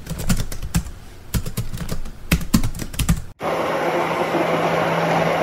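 A run of irregular clicks and knocks, then about three and a half seconds in a Cecotec personal blender starts and runs steadily with a low hum, blending a smoothie.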